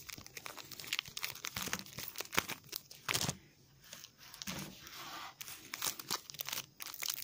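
Card pack wrapper crinkling and tearing as it is handled and opened, with many short crackles and a brief lull in the middle.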